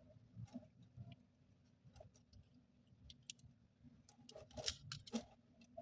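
Faint, scattered clicks and taps of washing machine drain valve parts being handled and fitted back together, with a small cluster of sharper clicks near the end.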